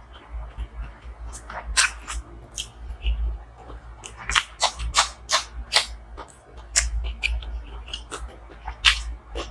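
Close-miked eating sounds: a person chewing and smacking on food, with sharp, irregular wet clicks, several a second through the middle. A steady low hum runs underneath.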